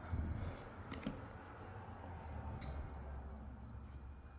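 A Disney Lorcana booster pack being opened and its cards handled: a few soft clicks and quiet rustling, the loudest click about a second in. A faint steady high-pitched whine runs underneath.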